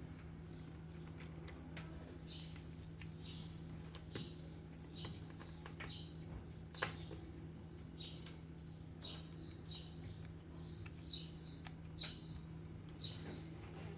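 Short high chirps repeating about once or twice a second, with scattered small sharp clicks, over a steady low electrical hum.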